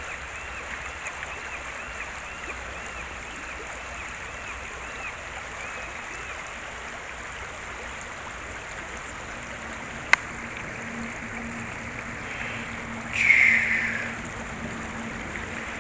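River water running steadily over rocks, an even rushing. A single sharp click comes about ten seconds in, and a brief, louder high sound falling in pitch follows a few seconds later.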